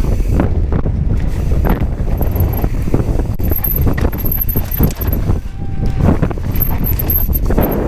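Wind buffeting the camera microphone over a steady low rumble, with frequent knocks and rattles from a Giant Trance full-suspension mountain bike's tyres, chain and frame on a dry dirt downhill trail at speed.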